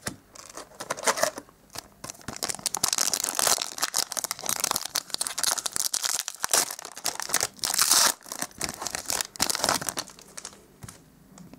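Crinkly foil wrapper of a trading card booster pack being crumpled and torn open by hand: a dense, irregular crackle that fades out about ten seconds in.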